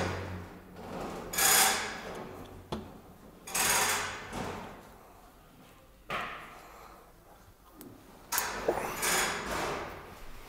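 Piston and connecting rod handled by hand while piston-pin retaining rings are fitted: about five short metallic scrapes and clicks, spaced a second or two apart.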